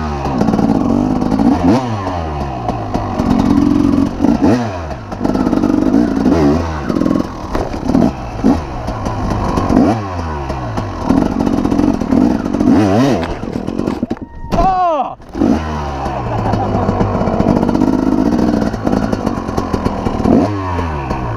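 Dirt bike engine being ridden, the throttle opening and closing so that its pitch drops off sharply every two to three seconds and then holds before climbing again.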